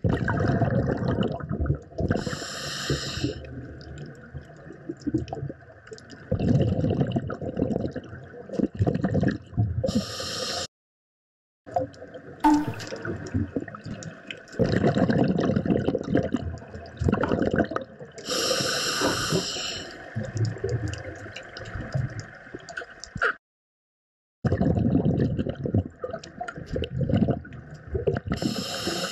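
Underwater scuba breathing: a brief hiss of the regulator on each inhale, about every eight seconds, between stretches of rumbling exhaled bubbles. The sound drops out twice briefly.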